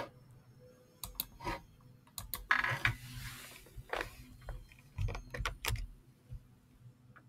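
Scattered clicks and taps of a computer keyboard and mouse, with a brief rustling noise about two and a half seconds in, over a faint steady hum.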